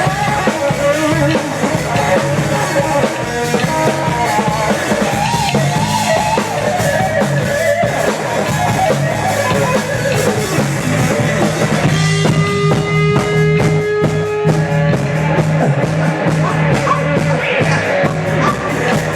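Rock band playing loud through a sound check, with drum kit, bass and guitar; the drummer's cymbals get busier about two-thirds of the way in.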